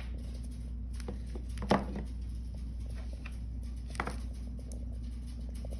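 A few scattered light clicks and taps, the loudest a little under two seconds in, from handling a small box and its contents, over a steady low hum.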